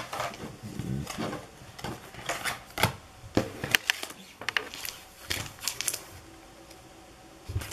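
Pokémon trading cards and a foil booster pack handled on a tabletop: scattered light clicks, taps and rustles, going quieter near the end.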